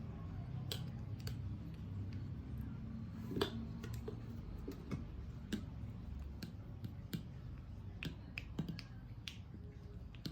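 Irregular light clicks and taps of objects being handled, with one sharper knock about three and a half seconds in, over a low steady hum.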